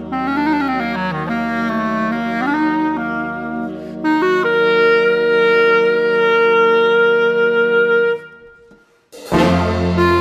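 Clarinet with a jazz big band of saxophones and brass: sliding, bending notes over sustained band chords, then a long held chord. About eight seconds in, the music cuts off for a moment, and near the end the full band comes back in loudly.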